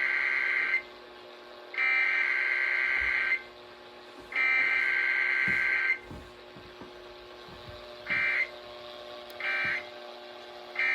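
Emergency Alert System SAME header: three buzzing bursts of digital data tones, each about a second and a half long, then three much shorter bursts of the same tones near the end.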